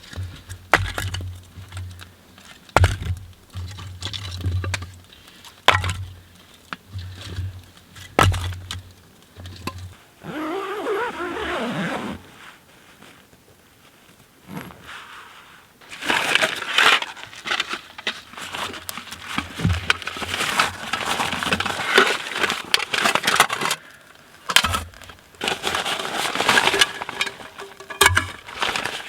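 Handling of cooking gear and food at a camp stove: scattered knocks and clatter, then longer stretches of crackling and scraping.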